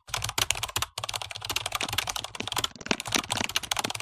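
Fast typing on a computer keyboard: a quick run of key clicks, broken by a couple of brief pauses.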